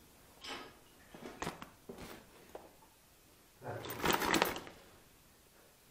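Handling noise from carried gear and clothing: a few scattered knocks and light clatter, then a louder rustling scuff lasting about a second, close to the microphone.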